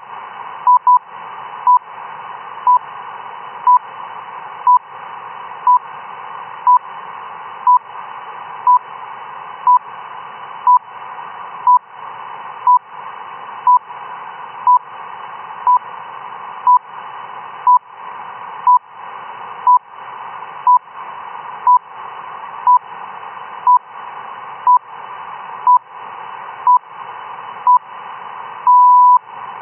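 RWM shortwave time-signal station received on a single-sideband receiver: short 1 kHz beeps exactly once a second over steady radio hiss. Near the end one beep is held about half a second, the longer pulse that marks the start of a new minute.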